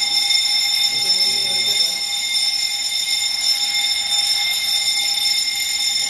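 Building fire alarm sounding continuously with a steady, high, ringing tone, set off by a smoke detector tripped by a smoke tester. It shows that the detector has activated the alarm system.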